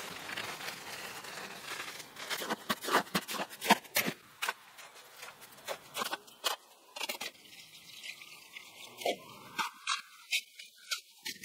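Dry refractory concrete and clay soil hissing as they pour from a bag into a plastic wheelbarrow. Then a small hand trowel scrapes and crunches through the dry mix in quick sharp strokes, growing sparser toward the end as it works through wetted mud.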